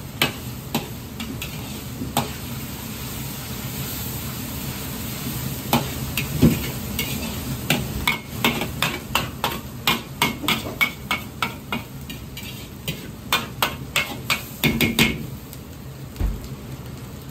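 Ground pork stir-frying in a wok with a steady sizzle, while a metal ladle scrapes and clanks against the wok, often several strikes a second in quick runs around the middle and near the end.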